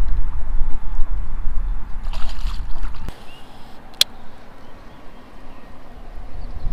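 Water sloshing against the side of a small fishing boat over a low wind rumble, with a brief splash about two seconds in as a bass is let go into the lake. About three seconds in it drops to quieter lapping, with one sharp click a second later.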